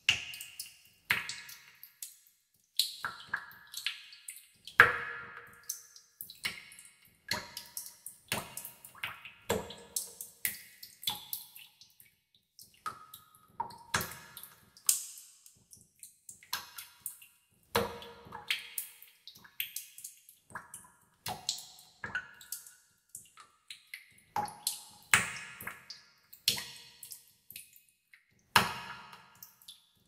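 Water drops falling into water in a tub, a few plinks a second at an uneven pace, each with its own pitch.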